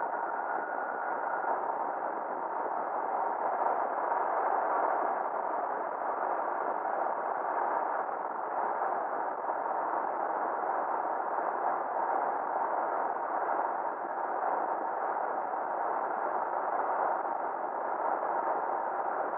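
Steady road and wind noise from a Ford F-350 pickup driving on the highway, even and unchanging throughout, with a faint thin tone in the first second or two.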